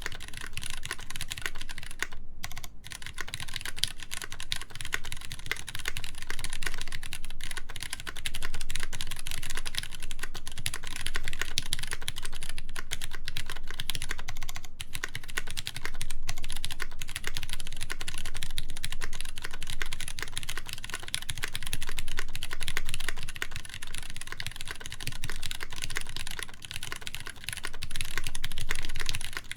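Continuous fast typing on a Duck Jetfire mechanical keyboard with lubed Cherry MX Brown tactile switches in a polycarbonate plate, under GMK keycaps: a dense, steady run of keystrokes with a couple of short pauses a little over two seconds in.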